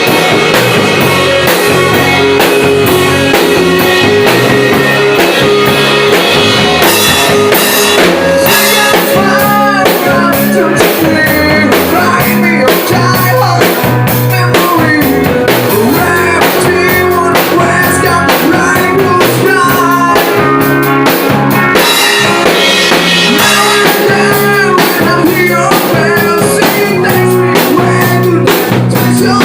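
Rock band playing at full volume: drum kit with steady beats and electric guitar, a lead guitar line bending up and down in pitch through the middle.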